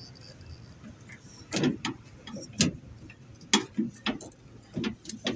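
Irregular sharp metallic clicks and knocks, about eight over a few seconds, as a metal tool works at the lock and latch linkage inside a Toyota HiAce door to get the door lock out.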